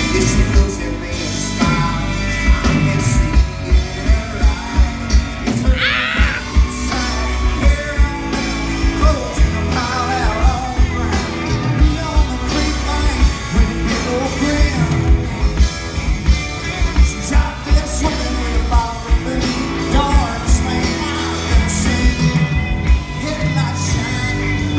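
Live rock band playing: electric guitars, bass and drums with a steady kick-drum beat, under a male lead vocal sung into a handheld microphone.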